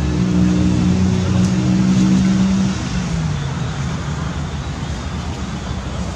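Motor vehicle engine running with a steady low hum, its pitch dropping about three seconds in as it passes or slows, over constant background noise.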